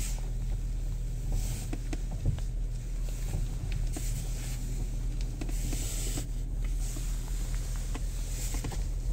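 Kia Optima steering column's plastic trim creaking in short, irregular clicks, over a steady low hum. The creak comes from stress on the plastic set up by the column's tilt position, which lowering the column a little relieves.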